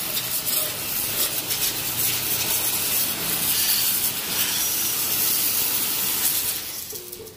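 Steady hissing, scouring blast of a motor scooter chassis being blast-cleaned before powder coating; it cuts off near the end.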